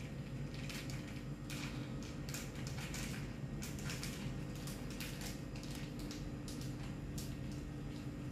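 Sauce-water bubbling in a wok over a gas burner, with a steady low hum underneath and irregular small splashes and crackles as chicken pieces are dropped into the boiling liquid.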